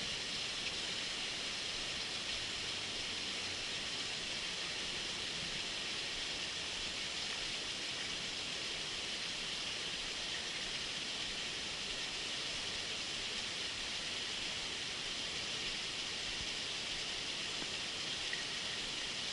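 Steady rushing of flowing water, an even hiss that holds unchanged throughout.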